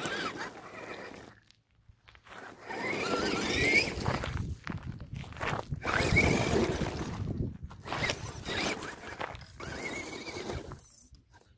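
Radio-controlled FTX Kanyon crawler truck driving over loose stones. Its electric motor and gears whine, rising and falling in pitch with the throttle, over the crunch of tyres on gravel. The sound comes in stretches, with brief stops.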